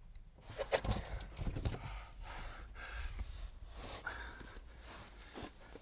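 A man breathing hard and sighing, with a few light knocks and rustles of movement.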